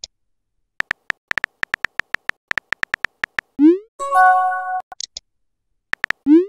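Chat-app texting sound effects: a quick run of about fifteen keyboard tap clicks as a message is typed, then a rising swoop and a short synthesized chime as it is sent. Near the end a few more taps and another rising swoop start.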